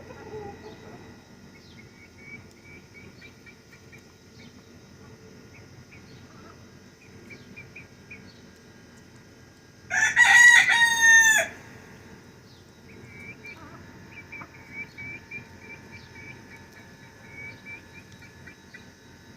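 A rooster crows once, loudly, about ten seconds in, for about a second and a half. Around it, faint repeated short high chirps and quiet clucking.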